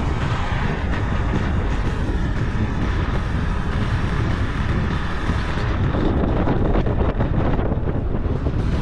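Steady rumble of a moving vehicle, with wind noise on the microphone.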